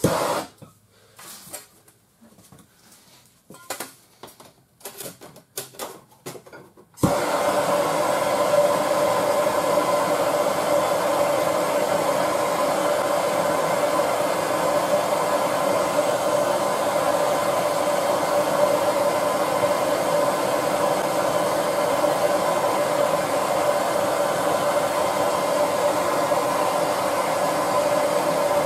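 A few light clicks and knocks, then about a quarter of the way in a Bernzomatic TS8000 hand torch lights with a sudden start and burns with a steady, even hiss, heating the frame rail to help straighten it.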